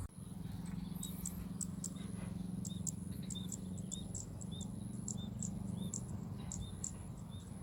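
Insects chirping in a steady rhythm: about three short high ticks a second over a thin, steady high-pitched tone, with a faint low hum underneath.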